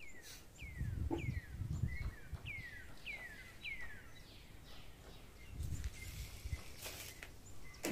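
A bird calling over and over, short whistled notes that fall in pitch, about two a second, fading after about four seconds. Low muffled bumps sit underneath.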